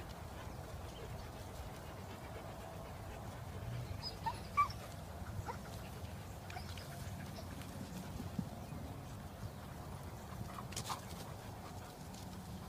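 Seven-week-old German shepherd puppies at play, giving a few short high-pitched cries, the loudest about four and a half seconds in, over a low steady background rumble.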